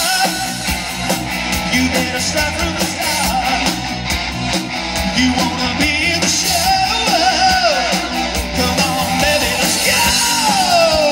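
1980s-style rock band playing live through a PA: lead vocals over electric guitars, bass, drums and keyboards, with a long falling pitch slide near the end.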